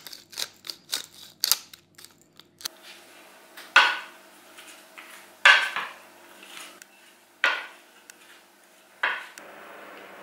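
A quick run of light taps as dried herbs are shaken from a small glass jar, then a wooden spoon turning sliced raw potatoes in a wooden bowl: four scraping tosses about a second and a half apart.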